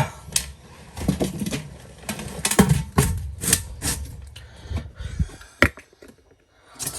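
Irregular clicks and knocks of hands handling objects and setting them down, with a short near-quiet pause about six seconds in.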